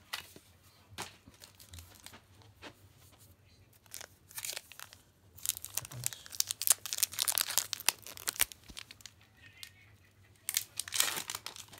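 Foil booster pack of trading cards being torn open and crinkled, in crackly bursts of rustling, the longest about five seconds in and another near the end.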